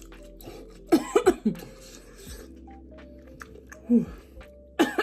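A person coughing in short bursts: a quick cluster about a second in, one cough near four seconds and another cluster near the end, over soft background music.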